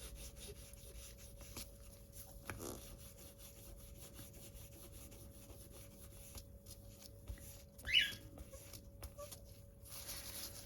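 Faint rubbing and light ticks of a wipe being drawn over cured gel nails to remove the sticky inhibition layer, with one short high squeak about eight seconds in.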